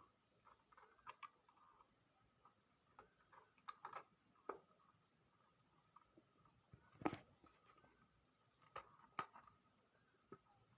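Faint, scattered clicks and taps of hands working on an electrical socket and its wiring, as the wires are fitted to the terminals; one sharper click about seven seconds in.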